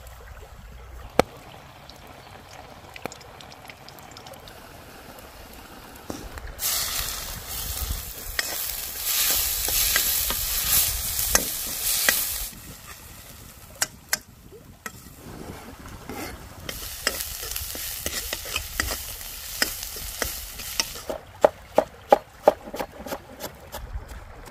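Food sizzling in hot oil in a wok (kadai) over a campfire, in two spells of about six and four seconds. Near the end, a run of quick knife taps as tomatoes are chopped on a plastic cutting board.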